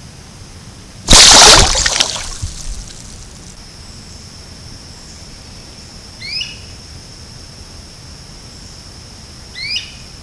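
A loud splash of water about a second in, then a female wood duck giving two short rising calls about three seconds apart, over a steady high insect trill.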